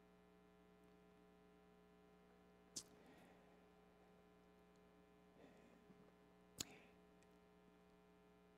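Near silence: a faint steady electrical mains hum, with two soft clicks about four seconds apart.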